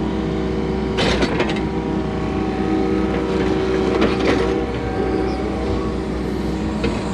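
Hydraulic excavator's diesel engine running steadily under digging load, heard from inside the cab. Two short bursts of noise, about a second in and around four seconds in, as the bucket works the soil and dumps it on the spoil pile.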